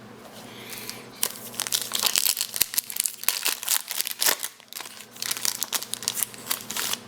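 Plastic wrapper of a baseball card pack being torn open and crinkled, a dense crackling that starts about a second in, with a short lull midway.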